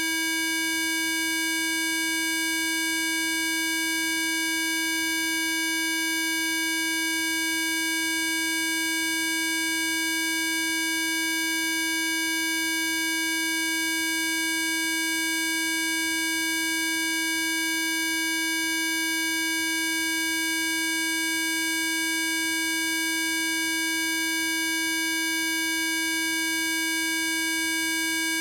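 Steady electronic tone with many overtones, one fixed pitch, unchanging in pitch and level: a PC Zapper sound-therapy frequency played continuously.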